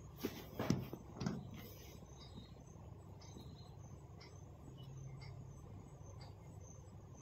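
Quiet room tone with a faint steady low hum. A few short clicks and rustles come in the first second and a half, then only faint scattered ticks.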